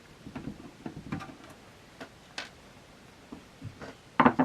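Screwdriver turning out the small screws on the back of the metal case: a series of light, irregular clicks and ticks, with a louder clatter just past four seconds in.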